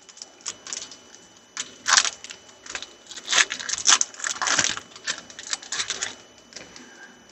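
Irregular crinkling and rustling of a foil trading-card pack wrapper as the cards are pulled out of it and handled, with a few sharper crackles in the middle.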